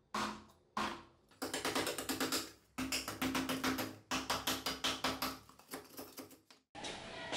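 Large fixed-blade survival knife chopping into a wooden board: a few separate chops, then a rapid run of sharp wooden knocks, several a second, with the board ringing. The chopping stops abruptly near the end.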